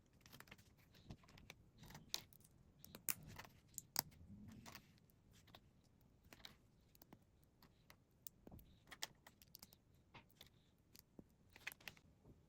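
Faint, irregular clicking and light rattling of plastic Lego pieces being handled, with a few sharper clicks between about two and four seconds in and again near the end.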